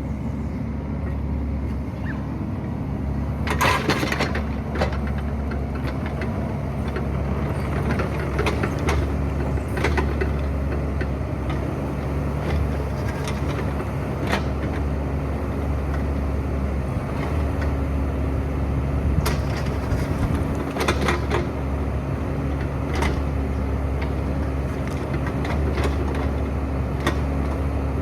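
Excavator engine running steadily under work, with scattered sharp clanks and scrapes from the machine digging, the loudest bunched about 4 and 21 seconds in.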